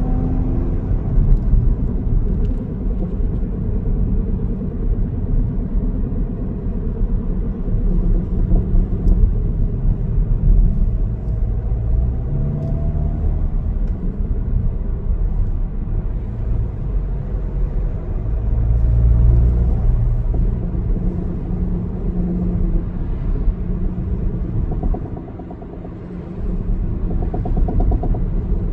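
Volkswagen Tiguan Allspace running, a steady low rumble with shifting tones that drops away for a moment near the end.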